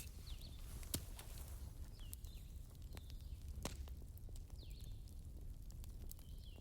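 Wood fire burning, with a low rumble and scattered crackles and pops. Short, high squeaking chirps come and go among them.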